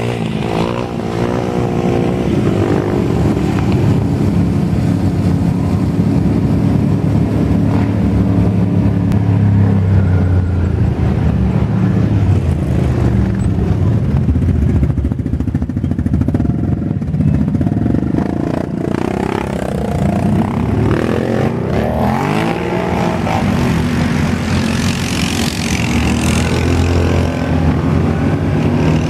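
Engines of a convoy of quad bikes and side-by-side UTVs running on a paved road, a steady loud engine drone with the pitch rising and falling as riders rev and throttle off.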